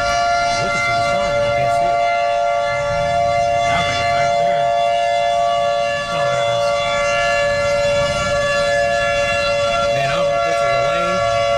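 Outdoor civil-defense warning siren sounding a steady, unbroken tone, the tornado warning alert for the approaching storm.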